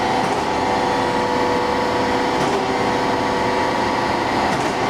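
Chevalier FSG-1640AD surface grinder running with its spindle and hydraulic pump switched on: a steady machine hum carrying a few constant tones.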